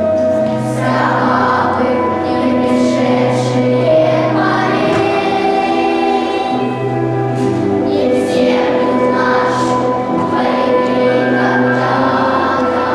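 Children's choir singing a slow song together over an instrumental accompaniment, with long held notes.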